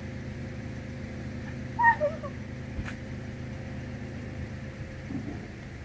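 A motor runs steadily at idle, a low even hum. A short high call that bends in pitch comes about two seconds in, and a single click follows about a second later.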